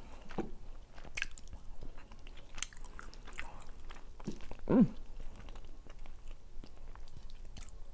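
Close-miked chewing of rotisserie chicken meat: soft wet mouth clicks and smacks, with a short low hum that falls in pitch about five seconds in.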